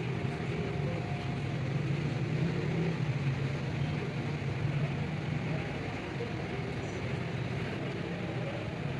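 A steady low mechanical drone, like a running engine, holding even without any change in pitch.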